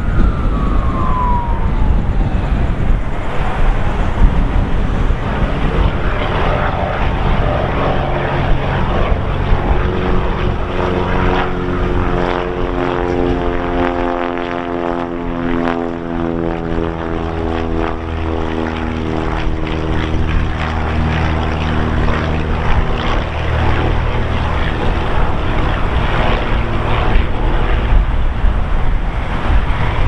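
Light single-engine propeller plane flying low past, its engine note gliding slowly down in pitch as it goes by and loudest around the middle, over heavy wind noise buffeting the microphone.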